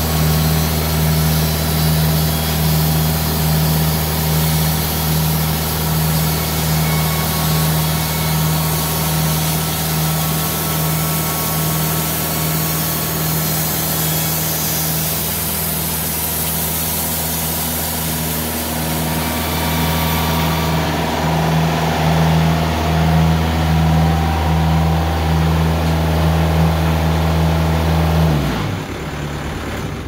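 TimberKing 2000 band sawmill running steadily, its blade cutting through a red elm log with a high hiss over the engine's steady drone. The hiss eases about two-thirds of the way in. Near the end the engine winds down and stops as the mill is switched off.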